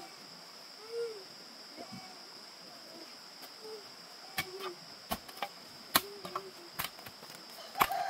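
A steady high insect drone over outdoor quiet, with short low pitched calls every second or so and, from about halfway, a run of sharp knocks or snaps.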